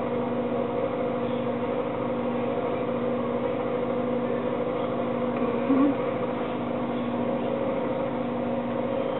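Steady electrical buzzing hum, held at one pitch, with a short louder wobble about six seconds in.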